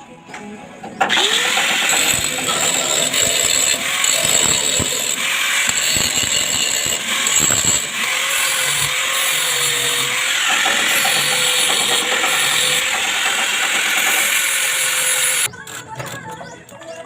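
Loud, harsh, steady metalworking noise, starting abruptly about a second in and cutting off suddenly near the end.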